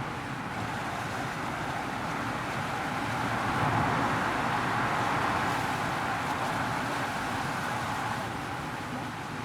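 Steady road traffic noise that swells louder about four seconds in and eases off again near the end.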